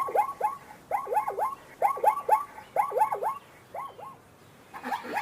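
An animal calling in short, pitched yelps, each rising and then dropping, in quick runs of two or three about once a second, thinning out near the end.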